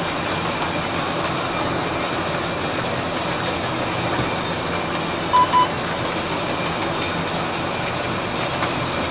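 City bus interior noise: engine and road rumble running steadily while the bus drives. About five and a half seconds in, two short electronic beeps sound in quick succession.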